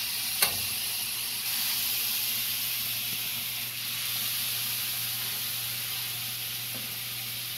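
Steady sizzling and hissing from a hot cast iron skillet of roux as liquid is worked in to loosen the last of it, with one sharp tap of a utensil on the pan about half a second in.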